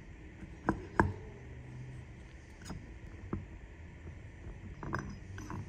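A few light clicks and knocks of steel gear parts being handled and turned over, the loudest about a second in, over a faint steady low hum.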